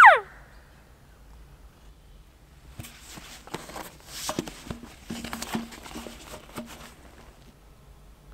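Hunter's elk bugle call through a bugle tube: the tail of a high, whistling bugle falls steeply in pitch right at the start. After a pause of about two and a half seconds comes about four seconds of rough, breathy, irregular blowing and grunting through the tube.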